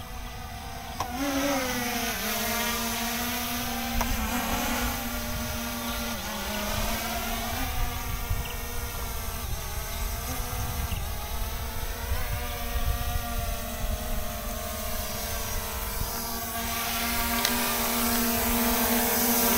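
SJRC F22 quadcopter's propellers whining in flight, the pitch of the motors rising and falling every few seconds as they speed up and slow down, with wind rumbling on the microphone. The motors are working to hold the drone steady in strong wind.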